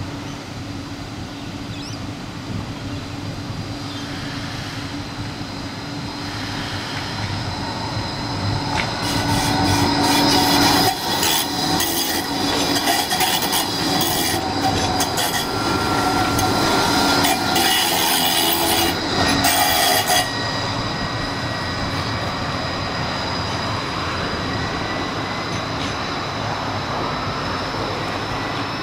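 Bombardier Flexity 2 light-rail tram rolling round a tight curve, its wheels squealing in high steady tones with clicking from the rails. The sound builds as the tram comes close and is loudest as it passes, then drops suddenly about two-thirds through to a fainter, steady tram sound.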